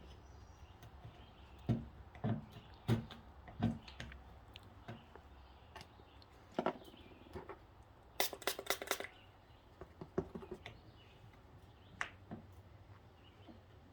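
Scattered knocks and clicks of hand tools and glue-pull tabs being handled on the dented panel while the glue is softened and lifted off, with a quick run of clicks about eight seconds in.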